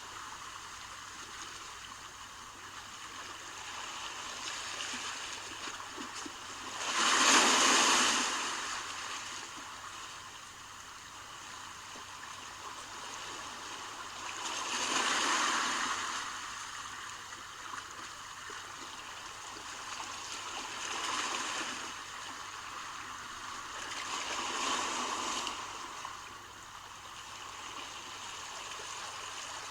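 Sea waves breaking on the shore: a steady wash of surf, with a wave crashing louder every six to eight seconds, four times in all, the first of them the loudest.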